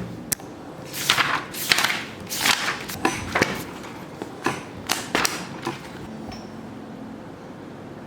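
A quick run of sharp knocks and clattering handling noises, about a dozen over some five seconds, then quieter.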